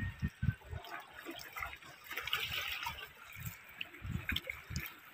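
Quiet trickling and dripping of water with irregular soft thumps and light crackle as fish are worked out of a wet gill net by hand.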